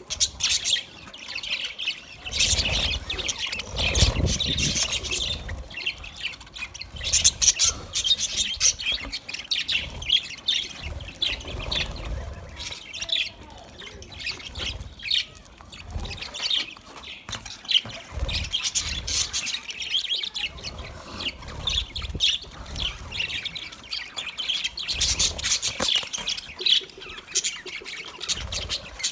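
A group of budgerigars chattering and chirping continuously in rapid, overlapping twitters and squawks, with intermittent low rumbles underneath.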